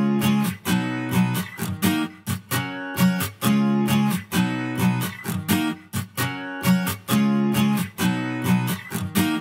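Background music: strummed acoustic guitar chords in a steady rhythm.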